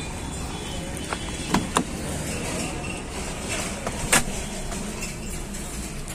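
Tata Vista's driver door being worked as someone gets into the seat: two quick latch clicks about a second and a half in, then a louder knock about four seconds in as it shuts, over steady outdoor background noise.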